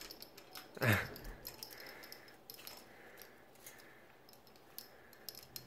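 Faint scattered clicks and taps of hard bird toys and cage parts being handled. A single short voice sound from a man, falling in pitch, comes about a second in.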